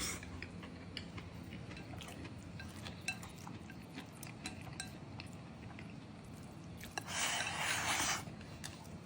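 Quiet eating sounds: scattered light clinks of utensils against a dish and chewing, with a short rush of hiss about seven seconds in.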